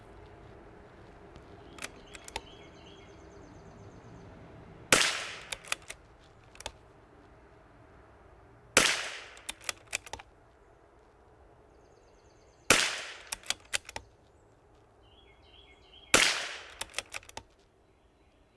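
CZ 457 bolt-action .22 LR rifle firing four shots about four seconds apart, each a sharp crack followed by several quick clicks as the bolt is worked to chamber the next round.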